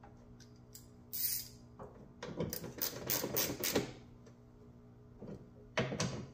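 Ratchet wrench clicking in short quick runs while loosening the Hyundai Elantra's hood mounting bolts for a gap adjustment, over a steady low hum.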